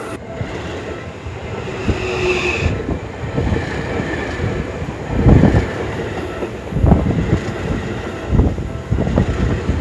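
A Seibu Ikebukuro Line electric train running past at a level crossing, a steady rumble of wheels on rails. In the second half come heavy knocks, one every second or so, as the wheelsets cross rail joints.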